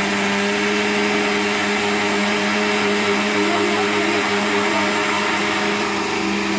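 Electric kitchen mixer grinder (mixie) running at a steady speed while grinding dried banana leaves into powder: a loud steady motor hum under a whirring rush of the blades and ground leaf.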